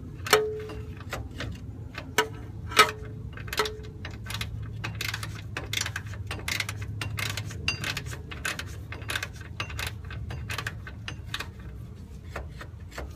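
Ratchet wrench clicking in quick short strokes as a bolt is run in, with a few louder metallic clinks that ring briefly in the first few seconds.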